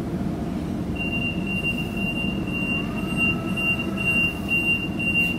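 Inside a Sydney electric suburban train standing at a platform, the train's equipment gives a steady low rumble. From about a second in, a high electronic beep sounds, pulsing rapidly, typical of the door-closing warning. A faint whine rises and then holds about three seconds in.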